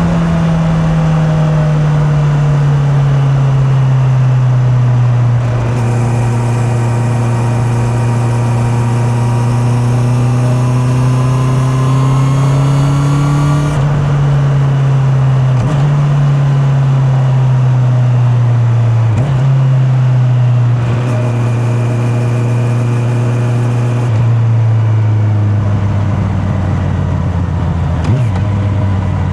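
Honda CB650R inline-four engine running on the road, heard from a mic in the rider's pocket. Its pitch eases off, then climbs slowly and drops suddenly about halfway, as at a gear change. It dips briefly twice more and rises again near the end.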